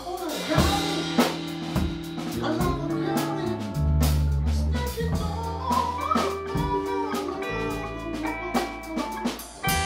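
Live band playing a groove on drum kit, electric bass, electric guitars and keyboard, with a male singer's voice over it.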